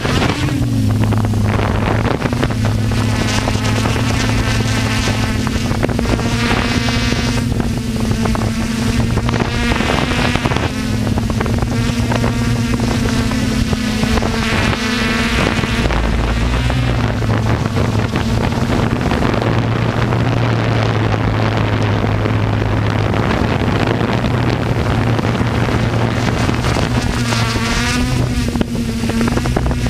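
Electric RC aircraft motors and propellers running with a steady buzz, the pitch wavering slightly now and then, with wind noise on the microphone.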